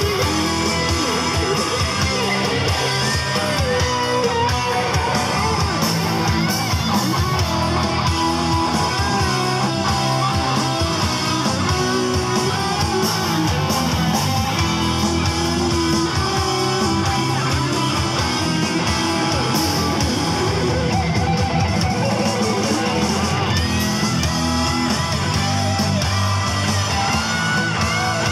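Live rock band playing: electric guitars, a bass guitar and an electronic drum kit.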